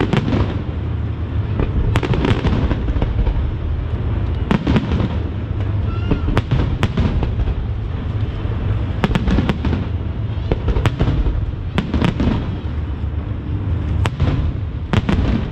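Aerial fireworks shells bursting in a display, sharp bangs coming every second or so, some in quick clusters, over a continuous low rumble.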